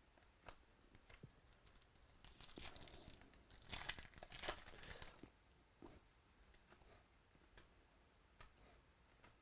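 A foil trading-card pack being torn open and crinkled: a rustling, tearing stretch from about two seconds in to about five seconds, loudest near the middle, with a few light clicks before and after.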